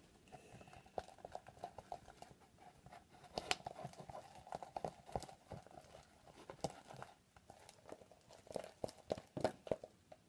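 Fluffy slime made with shaving cream being stirred with a plastic stirrer in a plastic party cup: a run of irregular clicks and soft squelches as the stirrer works the thick mixture and knocks the cup walls. The clicks thin out briefly about two-thirds of the way through, then pick up again.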